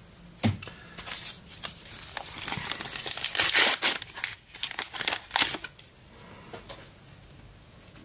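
Foil trading-card pack wrapper being torn open and crinkled, loudest about three and a half seconds in, then dying down to occasional soft rustles.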